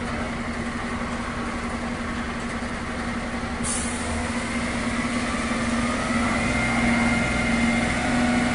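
Fire engine's engine running steadily at idle with a constant low hum, growing a little louder in the second half.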